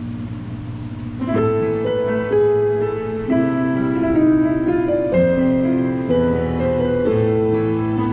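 Keyboard playing a slow hymn in held chords. A low sustained chord gives way about a second in to louder chords that change every second or so.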